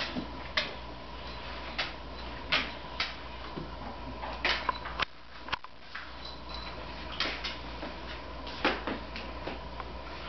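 A dog rummaging in a red cloth bag with a plush toy on a hardwood floor: scattered sharp clicks and short rustles at an irregular pace, from claws on the boards and the cloth being pushed about.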